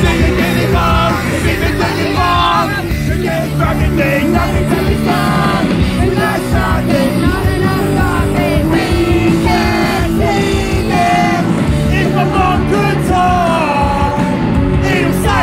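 Live punk rock band playing loud, with a sung vocal line over the instruments, heard from the crowd.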